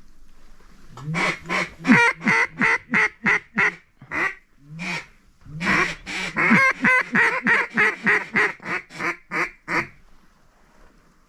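Mallard duck call blown close by, a rapid string of loud quacks at about three or four a second, working ducks that are dropping in toward the decoys. Two runs of calling, a short one and then a longer one, stop about a second before the end.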